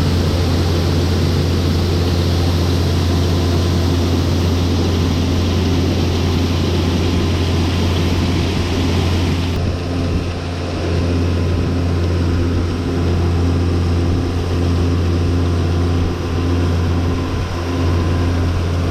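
Farm vehicle engine running steadily with a low, even drone. The hiss above it drops noticeably about ten seconds in.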